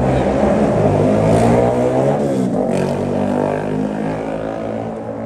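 A road vehicle's engine running close by, its pitch shifting as it moves, then easing off slightly over the last couple of seconds.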